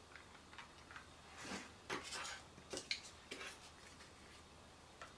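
Faint handling sounds: a few light clicks and rustles in the middle as hands work a microfiber cloth and a paper wrapper from a screen protector kit.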